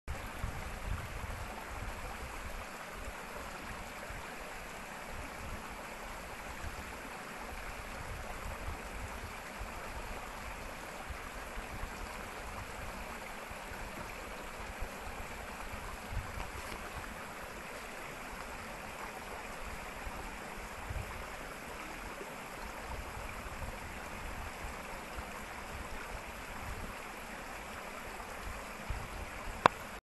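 Creek water rushing steadily over rocks, with irregular low buffeting rumbles on the microphone and a sharp click at the very end.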